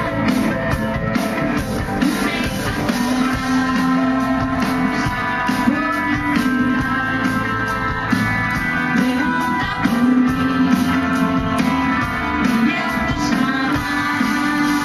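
Live amplified pop band playing, with a woman singing lead into a handheld microphone.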